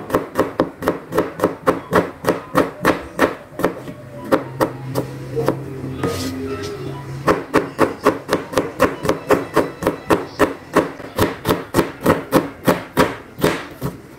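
Kitchen knife chopping garlic, then red onion, on a plastic cutting board: a steady run of sharp knocks, about three a second. The chopping stops for about three seconds in the middle, where a steady low tone is heard instead.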